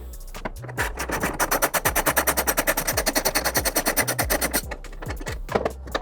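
Background music, with a rapid run of clicks at about a dozen a second for roughly three seconds in the middle: a ratchet turning the bed-extender bracket's T50 bolt.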